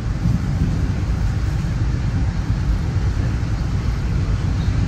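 Steady low rumble of a Metro-North commuter train running along the track, heard from inside the passenger car.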